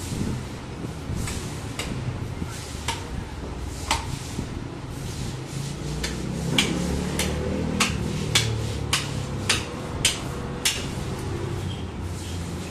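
Knife work on a hanging goat carcass: a run of sharp knocks and clicks, most of them bunched together in the middle stretch, over a steady low background rumble.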